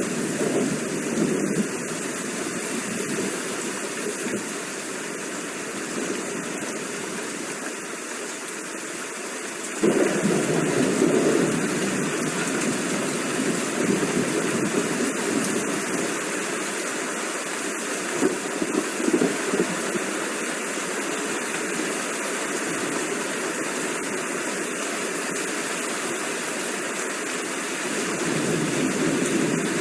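Steady rain, an even hiss; about ten seconds in it turns abruptly louder and fuller, and it swells again near the end.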